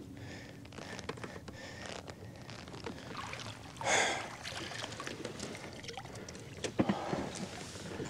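Small water splashes and clattering of rod, net and hull at the side of a fishing kayak while a hooked bass is brought in and netted, with a short louder rush of noise about four seconds in and a sharp knock near the end.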